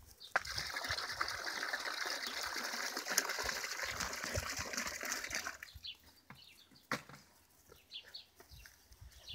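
Water pouring steadily for about five seconds and then stopping, followed by light scuffs and clicks.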